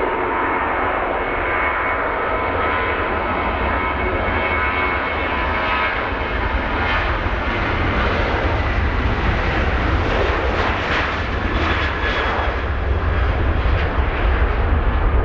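Boeing 737-800's twin CFM56-7B turbofan engines at takeoff thrust during the takeoff roll on a wet runway: a steady rush of jet noise with a whine of fan tones. It grows louder, with a deeper rumble, near the end as the airliner rotates.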